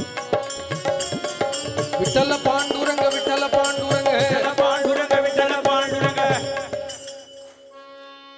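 Devotional bhajan music: a male voice singing a wavering melody over a steady held drone and rhythmic hand percussion. The song ends about seven seconds in, leaving only the held drone chord fading out.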